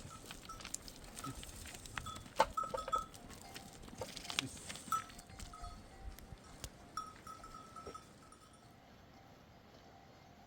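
Bells on a grazing flock of sheep and goats clinking irregularly, mixed with scattered clicks and knocks; it quietens after about eight seconds, leaving faint distant bell tones.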